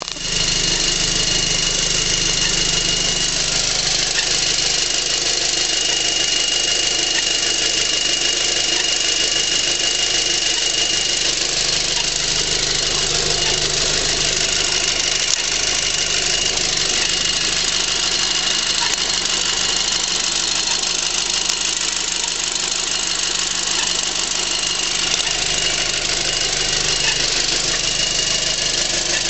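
2006 Volkswagen GTI's 2.0T FSI engine running steadily, with a steady high-pitched tone. A chirping noise from the passenger side of the engine, almost like a turkey call, recurs every couple of seconds.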